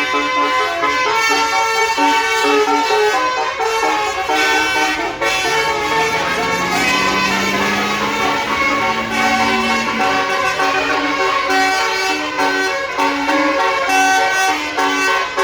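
Basuri telolet multi-tone bus air horn playing a melody of stepping notes. A low tone glides upward underneath from about six to ten seconds in.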